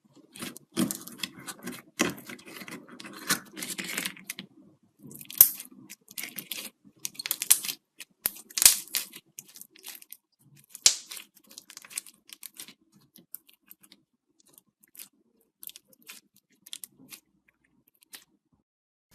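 Iceberg slime being worked by hand, its dried, hardened crust crunching and crackling. The crackling is dense for about the first half, then thins to scattered clicks and pops.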